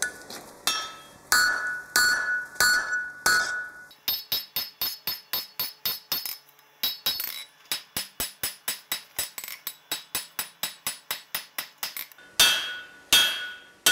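A blacksmith's 2.5-pound hand hammer strikes a bright yellow-hot steel bar on the anvil, drawing out tong reins, with the anvil ringing after each blow. It starts with heavy blows a little under two a second. It then breaks into a long run of quicker, lighter strikes about four a second, with a brief pause midway, and ends with two heavy blows.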